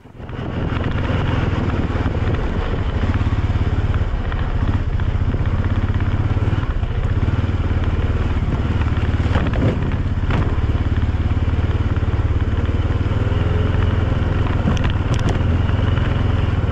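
ATV engine running steadily while the machine is ridden, with a few brief knocks about halfway through and near the end.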